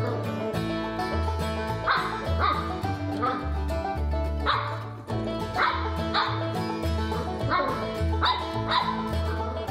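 A puppy giving a string of short, high barks and yips, about one a second, over background music with a steady bass beat.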